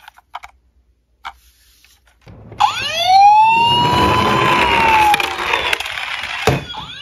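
A few small plastic handling clicks, then about two and a half seconds in a toy police car's electronic siren wails: the tone rises quickly, then falls slowly, over the low rumble of the toy rolling on the floor. A sharp click comes near the end and the wail starts again.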